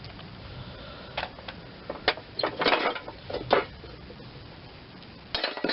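Metal clinks, knocks and scrapes in irregular bursts from a socket wrench and mower-blade hardware as a blade is taken off a steel mower deck.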